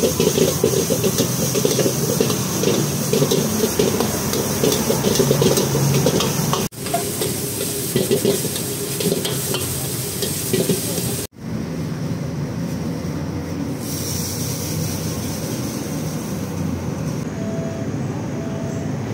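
Metal ladle scraping and clanking against a large steel wok over a steady sizzle as minced meat and basil are stir-fried. About eleven seconds in it cuts to a steadier background noise with almost no clatter.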